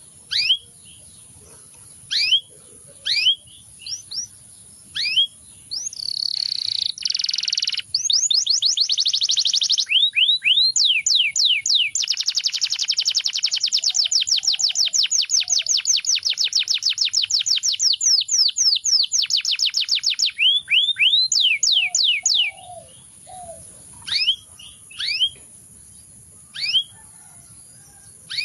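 Domestic canary singing: a few separate chirps at first, then about fifteen seconds of continuous song made of fast trills and repeated sweeping notes, then back to scattered single chirps.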